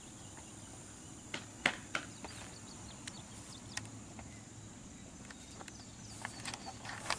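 Faint outdoor ambience: a steady high-pitched hum under a low rumble, with scattered light clicks and taps that come thicker near the end.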